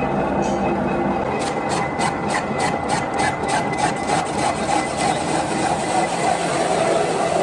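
Machinery running steadily, with a quick, even run of clicks or knocks, about four or five a second, from about a second and a half in until about four seconds in.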